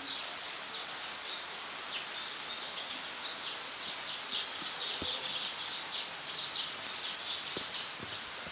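Outdoor ambience with a bird chirping in quick runs of short high notes, busiest in the middle, over a steady background hiss. A few faint knocks are also heard.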